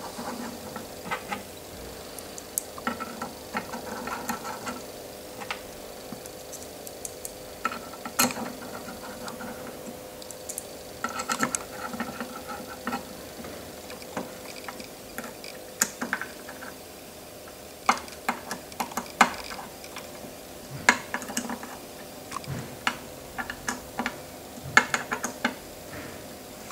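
Small machine screws being fitted and tightened with a hex screwdriver into a metal plate: scattered light metallic clicks and ticks, with short rattling runs as the tool turns, over a faint steady hum.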